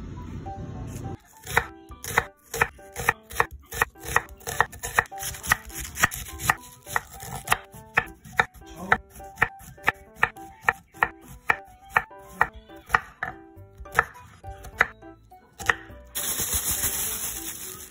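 Chef's knife chopping a Korean zucchini on a wooden cutting board: a steady run of sharp cuts, about two or three a second, each knocking on the board. Near the end a loud steady hiss takes over.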